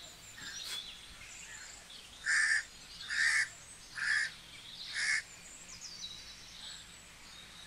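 A crow cawing four times, a little under a second apart, starting about two seconds in, with faint chirps of smaller birds.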